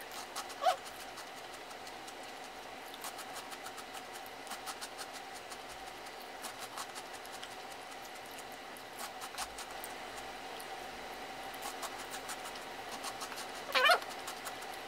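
Crunching of frozen chocolate churro-flavoured Kkobuk Chip corn snacks being chewed close to the microphone: many quick, crisp crackles.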